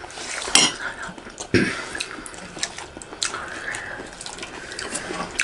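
Spoons clinking and scraping against stainless steel plates and a serving dish, with scattered light clicks and a couple of louder knocks, amid the small sounds of two people eating rice by hand.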